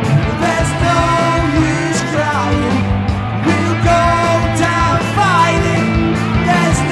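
Rock band playing an instrumental passage: a lead melody of bending, sliding notes over sustained bass notes and drums with cymbals.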